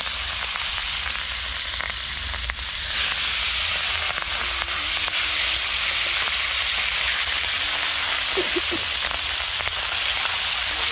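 Food frying in hot oil in a wok over a wood fire: a steady sizzle that grows louder about three seconds in.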